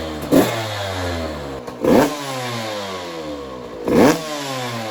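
KTM 85 two-stroke dirt bike engine being blipped three times, about every two seconds, with the revs falling away after each blip.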